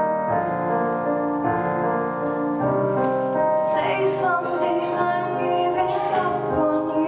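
Piano playing a slow ballad, with a woman's solo voice joining in about three seconds in, singing into a microphone.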